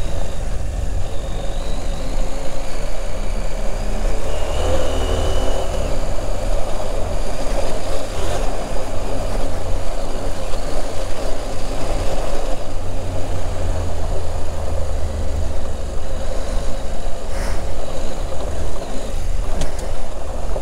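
Adventure motorcycle engine running under way along a loose gravel and dirt trail, with wind and tyre noise mixed in. The engine note swells twice, for a few seconds each time, as the rider gets on the throttle.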